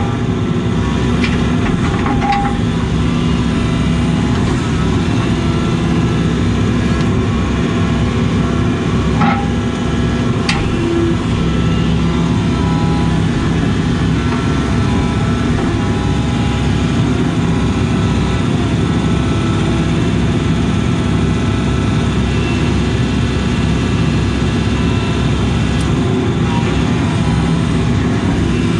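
Case CX80 excavator's diesel engine running steadily, heard from inside the cab while the hydraulics work the boom and bucket. A few light knocks come through now and then.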